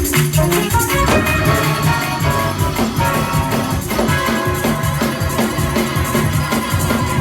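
Church praise music: organ chords held over a moving bass line and a steady drum beat.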